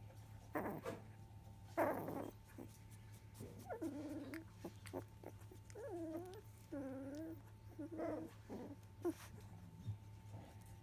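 Two-week-old Labrador retriever puppies whimpering and squeaking in short, wavering calls, several in a row from a few seconds in. Two brief rustles come before them.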